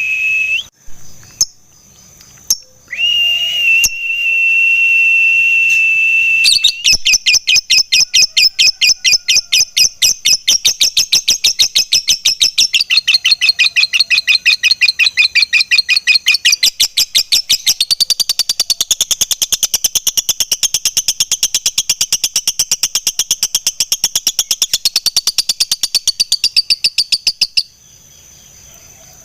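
Lovebird singing in fighter style: a couple of held high whistle notes, then a long, rapid chattering trill (the 'ngekek panjang') running for about twenty seconds before cutting off suddenly near the end.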